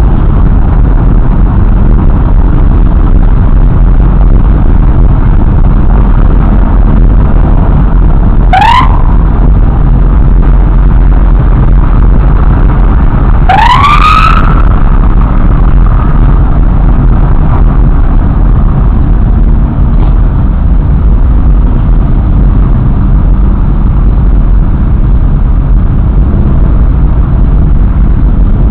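Steady, loud rumble of engines and wind on the move, with a police escort siren giving two short rising whoops, one about nine seconds in and a longer one about fourteen seconds in.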